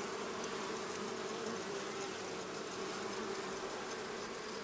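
A mass of honeybees on a comb buzzing in a steady, unbroken hum.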